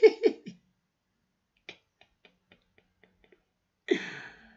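A man laughing in a few short bursts falling in pitch, then a quiet stretch with several faint ticks, and a breathy laugh near the end that fades.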